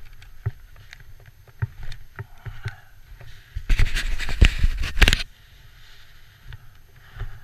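Snowmobile moving slowly over bare rock and snow: a low engine hum with scattered knocks and scrapes, and a loud rough rush of noise for about a second and a half near the middle.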